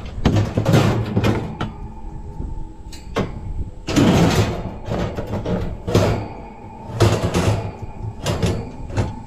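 Metal wire racks clattering and scraping against each other and the pickup's bed as they are slid in, in a run of irregular loud rattling bursts.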